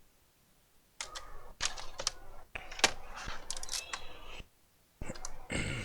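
Laptop plastic casing being handled and pried: a run of sharp clicks and short scrapes starting about a second in, a pause, then another cluster near the end.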